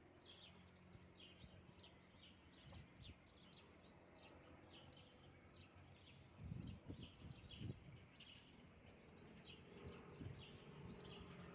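Small birds chirping and twittering, with a faint steady low hum from a diesel locomotive still far off. A few low rumbles come between about six and eight seconds in.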